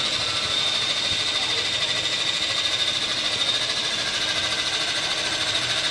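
Electric 450-class RC helicopter (Tarot 450) running on the ground with its main rotor turning: a steady high motor-and-gear whine.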